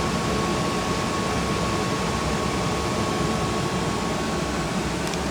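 Rheem gas furnace running on after the burners have shut off: the inducer motor's steady whir and rush of air, with a faint high whine that fades away near the end.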